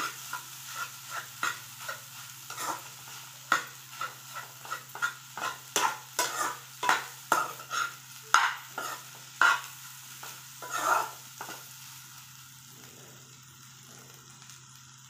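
Steel spatula scraping and tapping against a steel kadai as crumbled fish roe and egg fry is stirred, in irregular strokes over a faint sizzle. The stirring stops about eleven seconds in, leaving the sizzle and a low steady hum.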